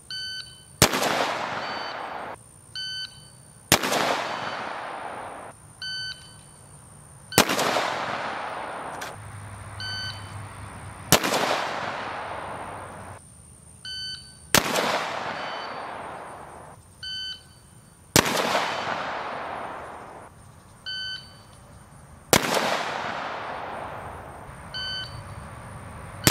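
Rifle fired single shots, seven in all, about one every three to four seconds, each cracking sharply and fading in a long echo. Between the shots a shot timer gives short electronic beeps, the start signal and par-time signal for each string.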